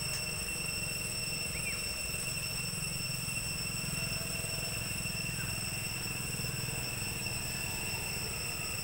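Steady outdoor background of a low rumble under a high, unchanging whine, with one brief faint chirp about one and a half seconds in.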